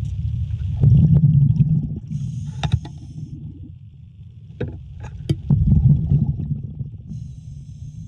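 Underwater scuba breathing: two loud bubbling rumbles of exhaled air, each followed by a hiss, with a few sharp clicks and knocks between them.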